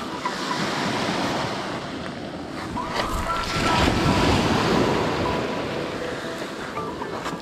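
Ocean surf breaking and washing up a pebble beach, swelling to its loudest about four seconds in as a wave breaks, with wind buffeting the microphone.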